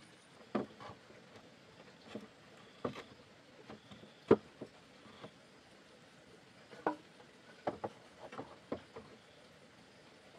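Irregular light taps and knocks, about a dozen scattered through, with one sharper knock a little after four seconds in.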